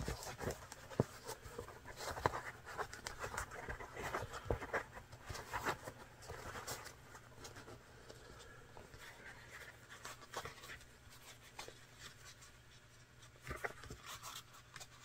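Leather being hand-stitched: faint, irregular scratching and rustling as the thread is drawn through the leather and the piece is handled, with scattered small clicks. It is busier in the first half and thins out after that, over a low steady hum.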